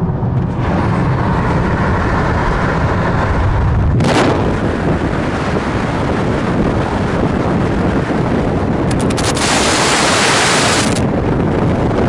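Heavy wind buffeting on a camera microphone held out of the window of a car moving at highway speed. There is a sharp gust about four seconds in and a louder, harsher stretch near the end.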